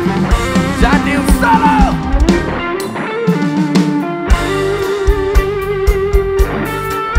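Live band music: an electric guitar plays a lead line with bent notes over a steady drum and bass beat. The drums and bass drop out for about a second and a half midway, then come back in.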